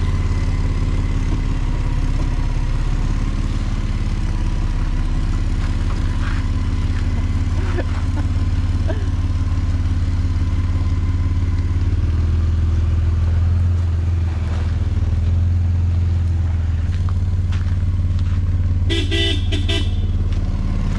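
Toyota LandCruiser 80 Series 4.5-litre straight-six engine running steadily at low revs as the vehicle crawls slowly over a rough, rutted dirt track. A short high-pitched squeak comes near the end.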